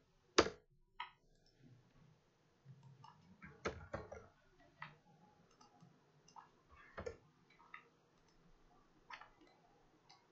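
Scattered sharp clicks of a computer keyboard and mouse, about seven of them at irregular intervals, with the loudest near the start and around four seconds in.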